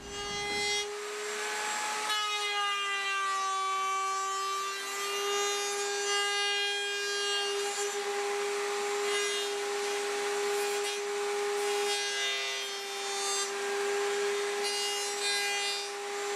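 Router spinning a bearing-guided flush trim bit, cutting the walnut and maple rack's edge flush to a plywood pattern: a steady high whine with the hiss of wood being cut. The pitch dips slightly about two to four seconds in.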